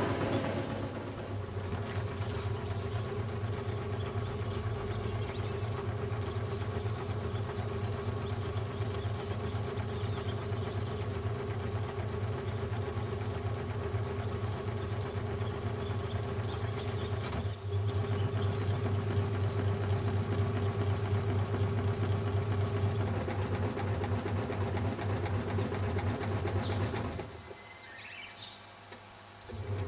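Washing machine running with a steady motor hum and drum rumble. Near the end it drops off for about two seconds, then starts again.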